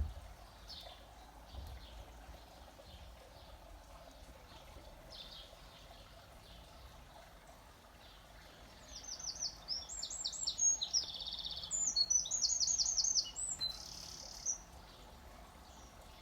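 Garden birdsong: faint high calls at first, then a songbird sings loudly in phrases of quickly repeated high notes, several groups in a row over about five seconds near the end. A brief thump right at the start.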